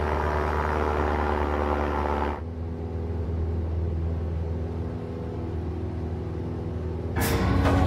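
Small single-engine propeller plane's engine droning steadily in flight. About two and a half seconds in, the drone turns duller and lower, as heard from inside the cabin. A louder, harsher noise joins just before the end.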